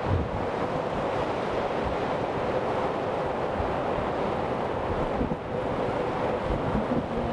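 Steady rushing road and wind noise of a vehicle driving through a road tunnel, with a faint steady hum underneath and a brief dip about five seconds in.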